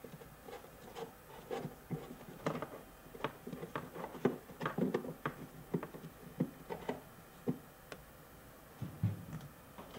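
Pleated paper air filter being handled and fitted into the plastic air box of a BMW R1200RT by a gloved hand: irregular light taps, clicks and rubbing, several a second, with a duller thump about nine seconds in.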